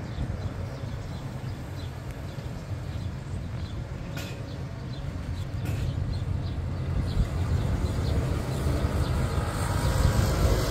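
Street traffic: cars and motor scooters passing on the road below, a steady low rumble that grows louder near the end as a vehicle goes by close.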